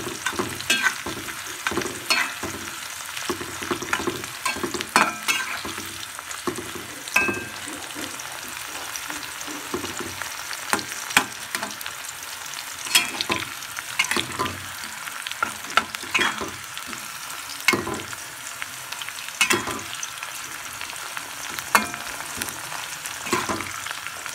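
Red chilies, shallots and garlic sizzling in hot oil in a metal wok, with a metal spoon scraping and knocking against the pan now and then as they are stirred.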